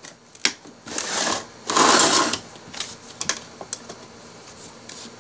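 Toy train set pieces clicking and clattering as they are handled, in scattered short knocks, with two brief rustling hisses about one and two seconds in.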